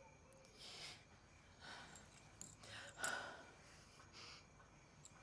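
A woman's faint breathing and sighs as she sits up from a sofa, a few short breaths about a second apart, with soft rustling of the cushions.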